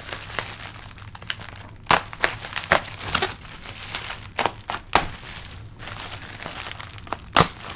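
Plastic bubble wrap being handled and pulled open, crinkling and rustling, with several sharp clicks; the loudest comes near the end.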